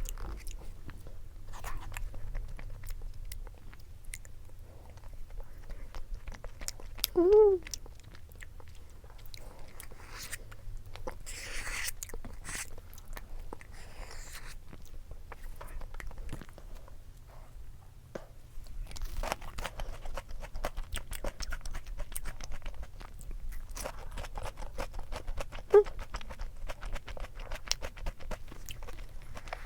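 Close-miked chewing and biting of milk-cream bungeoppang (fish-shaped pastry), with many small crunchy, wet mouth clicks. A brief pitched sound comes about seven seconds in, the loudest moment, and a shorter one near the end.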